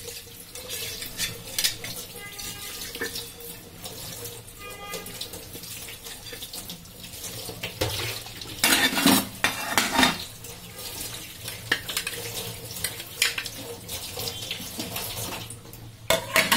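Tap water running over a metal pot lid into a stainless steel sink as dishes are rinsed, with clattering of dishes knocked together, loudest about halfway through and again near the end.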